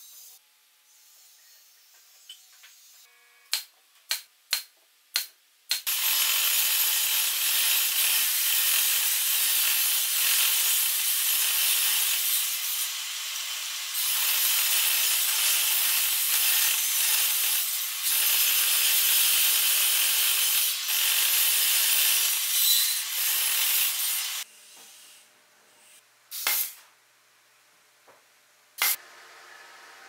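Table saw ripping thin hardwood strips: a loud, steady hiss of blade cutting wood that starts suddenly about six seconds in, dips briefly partway through and stops a few seconds before the end. Four sharp clicks come just before it, and two sharp knocks come near the end.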